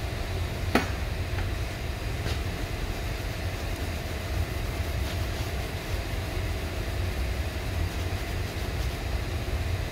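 Steady low mechanical rumble, with one sharp click about a second in.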